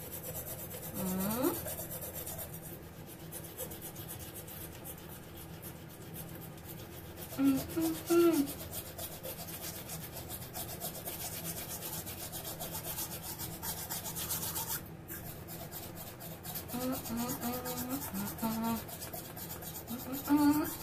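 Manual toothbrush scrubbing teeth with a gritty paste of salt, baking soda and toothpaste, in fast back-and-forth strokes. Short hums from the person brushing break in about a second in, around the middle, and near the end.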